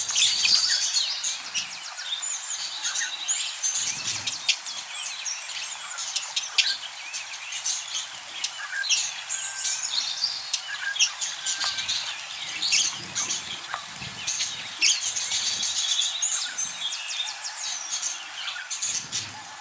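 Budgerigars chattering in a cage: a continuous jumble of many short overlapping chirps and warbles.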